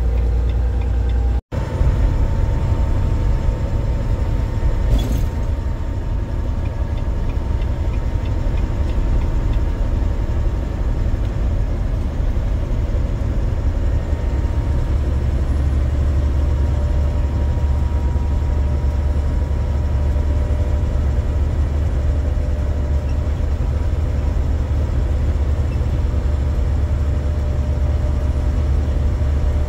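Semi-truck driving at highway speed: a steady low engine drone mixed with road noise.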